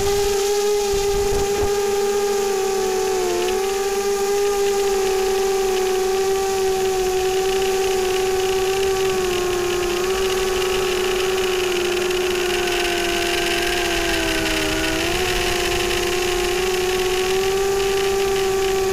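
Electric motors and propellers of an FPV multirotor drone in flight: a steady, high whine that holds its pitch, dipping briefly about three seconds in and again about fifteen seconds in, over a steady hiss.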